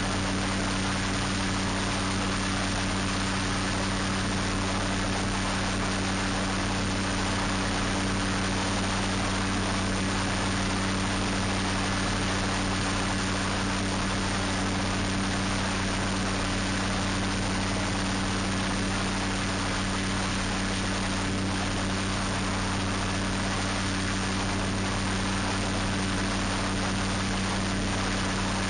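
Starflight ultralight trike's engine and propeller running steadily in cruise, a constant low hum with a rush of wind noise over it and no change in pitch or power.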